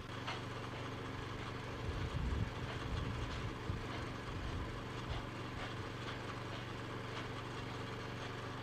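Miniature ride-on steam train running with a load of passengers: a steady low hum with faint, repeated clicks.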